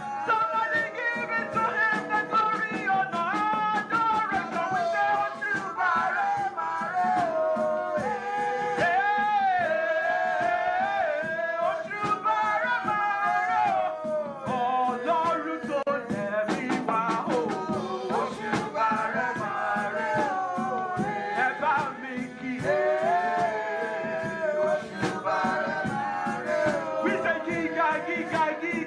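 Live church worship music: a melody line that bends and glides over a steady percussion beat, with a shaker rattling throughout.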